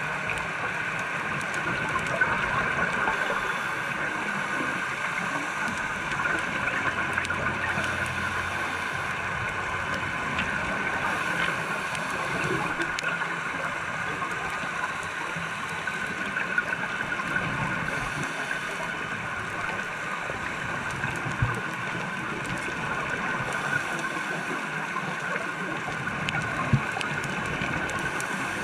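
Steady underwater ambience picked up by a diver's camera: an even hiss with a constant hum, and a few faint clicks.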